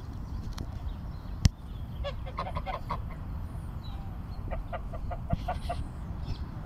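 Domestic geese honking in two quick runs of short calls, one about two seconds in and another about four and a half seconds in, over a steady low rumble. A single sharp knock sounds about a second and a half in.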